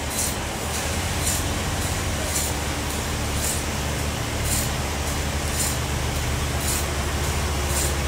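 An engine running steadily with a low hum, while a short high hiss repeats about once a second.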